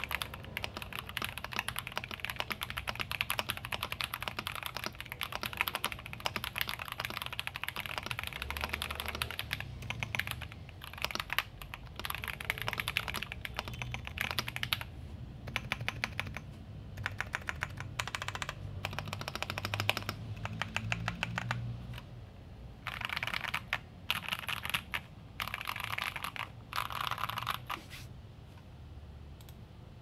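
Typing on an Akko ACR67 mechanical keyboard with a polycarbonate plate, foam and tempest mods, lubed and filmed JWK switches and doubleshot ABS keycaps, the keystrokes giving heavy popping sounds. Fast, continuous typing for about ten seconds, then shorter bursts with brief pauses, stopping near the end.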